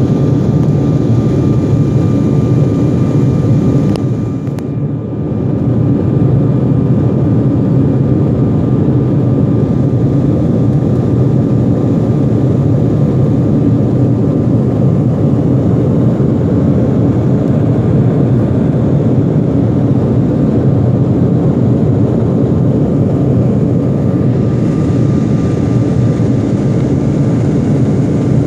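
Steady cabin roar of a jet airliner's engines and rushing air during the climb after takeoff, heard from a window seat, with a faint steady whine above it. The roar is briefly muffled about four seconds in.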